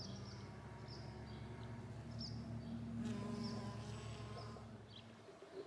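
A bee buzzing steadily at the flowers close to the microphone. The buzz swells a little past halfway and fades out near the end. Small birds chirp faintly in the background.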